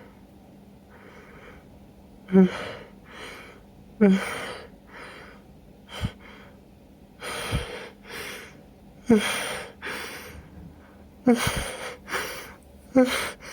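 A person sneezing again and again in a fit set off by chhinkni, a sneeze-inducing herb: about five hard, sudden sneezes, each opening with a short voiced catch, with smaller gasping bursts and in-breaths between them.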